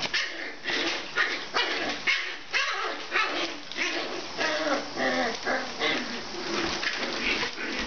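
34-day-old English Cocker Spaniel puppies play-fighting, giving short yips and small barks in quick succession.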